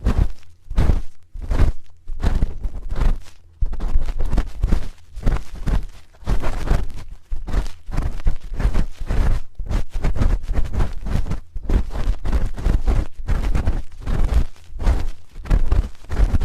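Spoon scraping and rubbing against a binaural microphone's ear in repeated close strokes, separate at about two a second at first, then running together in a denser stretch.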